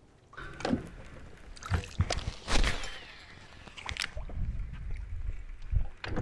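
A series of sharp knocks and clatter, as gear is handled and people move about in a fishing boat, with a low rumble in the second half.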